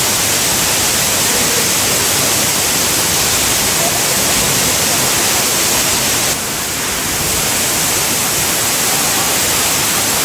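Waterfall roaring: a steady, loud rush of falling water, dipping slightly in level about six seconds in.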